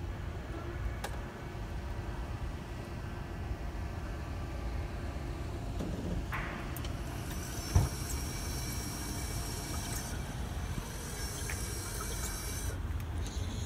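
Bruno electric wheelchair crane running as it lowers a folded-up manual wheelchair into a pickup bed, over a steady low rumble. A single thump comes about eight seconds in, and a high thin whine runs from then until it cuts off suddenly near the end.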